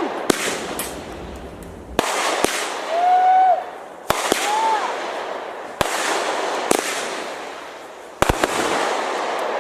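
Aerial fireworks going off: sharp bangs every second or two, each followed by a crackling, sizzling tail, with a quick double bang near the end. A brief whooping tone rises and falls about three seconds in.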